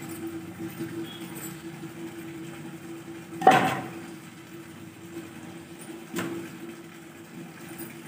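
A grass broom with a plastic handle falls onto a concrete floor about halfway through with a sharp clatter, followed a few seconds later by a lighter knock. A steady low hum runs underneath.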